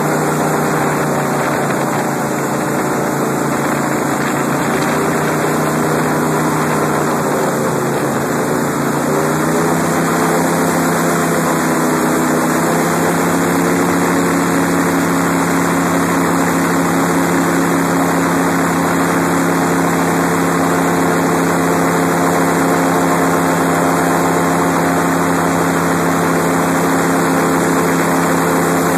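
Airboat's engine and propeller running very loud while under way. The engine note dips slightly about eight seconds in, then steps up in pitch twice, around ten and thirteen seconds in, and holds steady after that.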